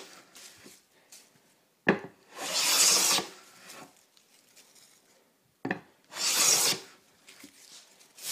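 Hand plane strokes on wood: a sharp knock as the plane meets the board, then about a second of shaving hiss, repeating roughly every four seconds.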